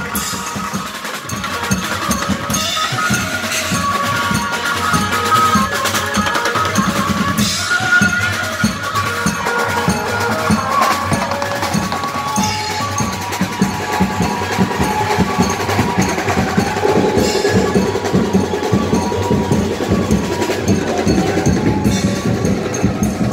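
Live band music led by a drum kit played loud and busy: quick snare and tom strokes with bass drum and cymbals, over a sustained melody line.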